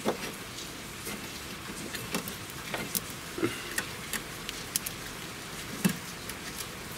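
Scattered light metallic clicks and knocks, at irregular intervals, over a steady hiss: parts and tools being handled while the rear beam is pushed into place so its bolts catch the threads.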